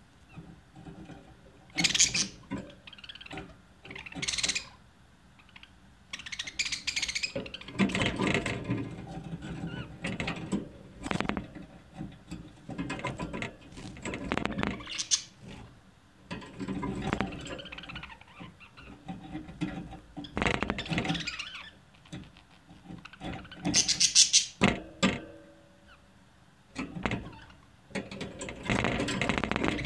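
Budgerigars chattering and warbling in irregular scratchy bursts, each lasting from about a second to a few seconds, with short pauses between them.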